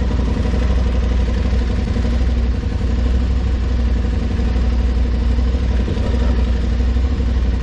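Aprilia Tuareg 660's parallel-twin engine running steadily while riding at road speed, under a heavy, steady low rumble.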